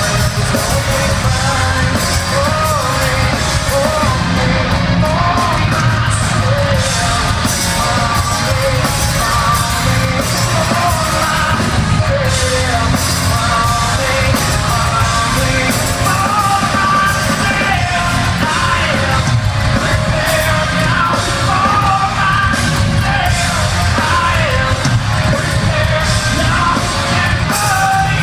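Rock band playing live through an arena PA: drums, bass and electric guitars with a male lead vocal singing over them, carrying the echo of a large hall.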